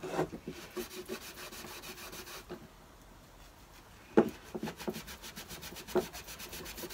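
Clear paste wax being buffed by hand on a stained wooden box: quick, even rubbing strokes over the wood, easing off for a moment in the middle. A sharp knock about four seconds in and a lighter one near the end.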